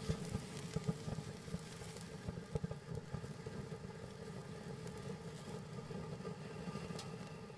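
Consumer ground fountain firework (World Class 'It's a Boy') burning: a steady hiss of spraying sparks, thick with crackling, and one sharper crack about seven seconds in.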